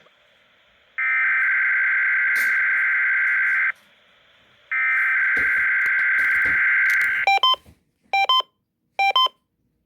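SAME alert header data bursts from a weather radio broadcast: a raspy two-tone digital buzz, twice, each about two and a half seconds long with a one-second gap between. These are followed by four short electronic beeps about a second apart.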